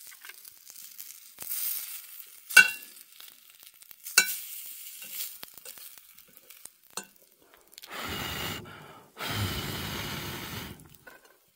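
Spam and potatoes sizzling in a cast iron skillet over a wood fire, with a fork clinking against the pan twice. A low rumble comes in near the end.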